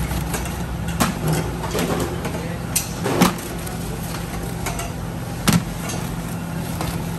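Steady low machine hum with a few sharp clanks of metal baking trays being handled, the loudest about three seconds and five and a half seconds in.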